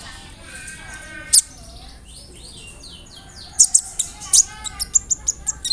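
Kolibri ninja (konin, the olive-backed sunbird) singing a varied song: warbling whistles, a row of short falling chirps, then a run of sharp, high, rapid notes about three and a half seconds in.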